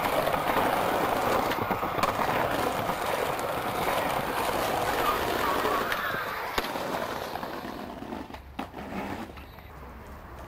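Skateboard wheels and trucks scraping along a rough brick ledge in a long, loud grind, ending in a sharp clack as the board lands about six and a half seconds in. Quieter rolling follows, with a couple of clicks near the end.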